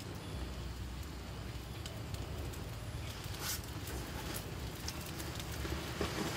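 Small wood cooking fire crackling, with scattered sharp pops, over a steady low rumble.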